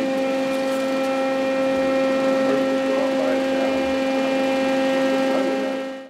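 Steady mechanical hum with a constant-pitch whine and a noisy background, cutting off abruptly at the end.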